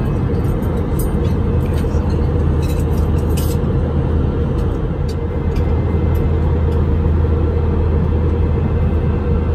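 Steady cabin noise of an Airbus A321 in cruise: a low, even drone of engines and airflow. A few faint light clicks come in the first few seconds.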